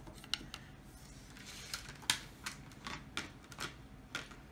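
Mini stainless steel tongs with silicone grips being set down and shuffled together on a wooden tabletop: a string of light, irregular clicks and taps.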